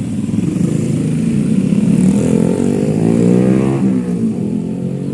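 A motor vehicle passing close by: its engine grows louder, then drops in pitch as it goes past about four seconds in.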